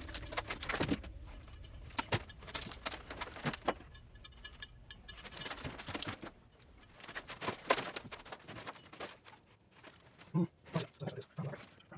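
Scattered clicks, taps and rustling of wires and small parts being handled, with a few soft low thumps near the end.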